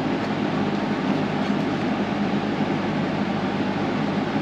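Steady drone of a running fan, with a low hum underneath and no change in level.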